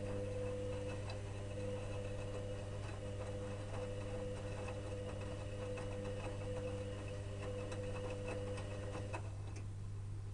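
Electrolux EWS 1045 washing machine running its wash, the motor turning the drum with a steady whine and faint ticking, stopping with a click about nine seconds in. A low hum carries on underneath.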